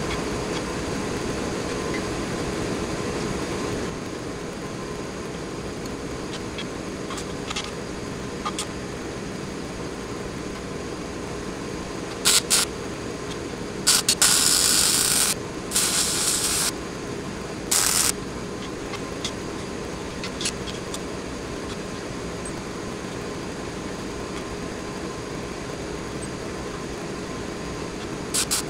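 Short bursts from a Lincoln Square Wave TIG welder's arc, a hiss, as small brackets are tack-welded onto a steel tube frame. There are four or five tacks, each under a second to about a second and a half long, a little before halfway through, and another starts near the end. A steady shop hum runs underneath.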